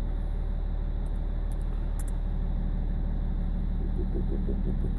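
BMW 330d's M57 straight-six diesel idling unevenly, with the lumpy idle of a failing number 6 injector, while its EGR valve is driven open through diagnostic software. A pulsing beat comes into the running about four seconds in as the engine begins to judder.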